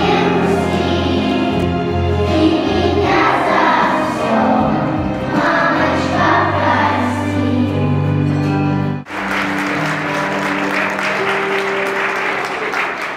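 Choir singing a song over backing music. About nine seconds in the sound cuts abruptly to clapping applause, with sustained music notes carrying on beneath it.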